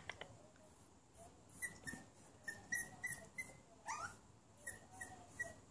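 Small puppy whimpering faintly: a string of short high-pitched whines, about two or three a second, with one longer rising whine about four seconds in.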